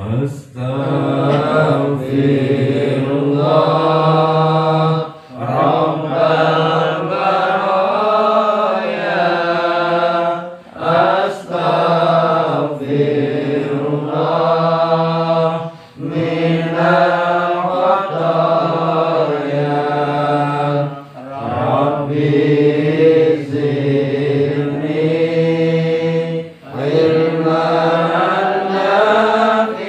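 Unaccompanied melodic Arabic chanting of sholawat, blessings on the Prophet, with long held, slowly bending notes. It comes in phrases of about five seconds with short breaks for breath.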